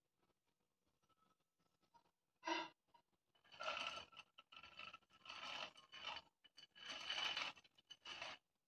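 Sprouted mung beans tipped into an aluminium pressure cooker, falling onto the thick masala and the metal sides in a series of faint, separate rustling pours through the second half. There is one short sound about two and a half seconds in.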